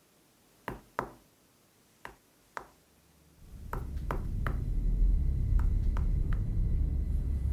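Knuckles knocking on a wall: two pairs of sharp knocks, then two quicker groups of three. About three and a half seconds in, a low rumbling drone swells up and carries on under the later knocks.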